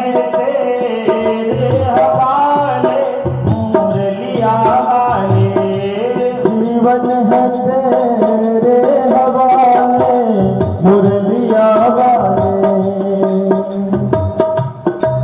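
Instrumental opening of a Hindi Krishna bhajan: a sustained, wavering melody over a steady beat of tabla-style hand drums.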